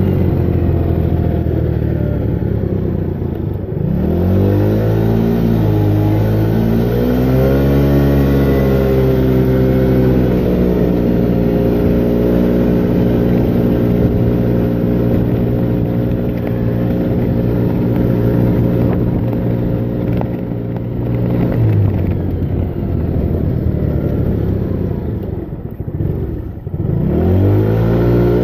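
Moped engine running under way: its pitch drops about four seconds in as it slows, climbs again as it accelerates, holds steady for a long stretch, then falls and dips before climbing once more near the end.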